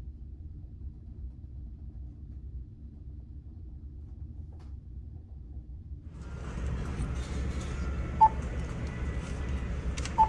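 Steady low hum of the ferry's engines, then after about six seconds busier room noise and two short electronic beeps about two seconds apart from a meal-ticket vending machine's touchscreen as its buttons are pressed.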